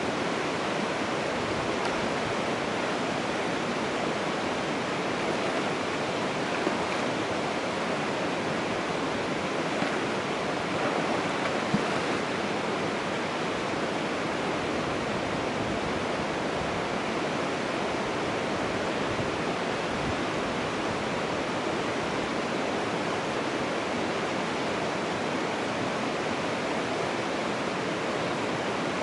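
Steady rushing of running water, even and unbroken, with a few faint ticks scattered through it.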